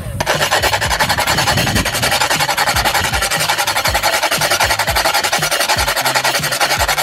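A chunk of pink rock salt rasped quickly back and forth on a metal salt grater, a steady run of rapid scraping strokes that stops just at the end.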